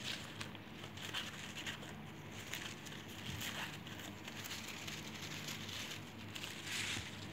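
Green crepe paper rustling and crinkling in irregular bursts as hands gather and press its ruffled frill.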